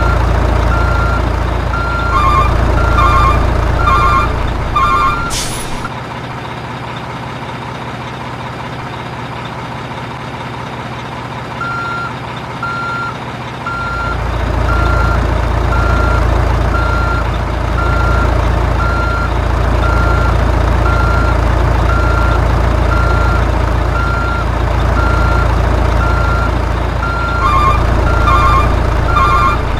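Electronic sound unit of a remote-control dump truck: a steady diesel-engine hum with a reversing alarm beeping about once a second. A quicker second beep pattern joins twice, a short hiss comes about five seconds in, and the engine hum drops out for several seconds in the middle before it resumes.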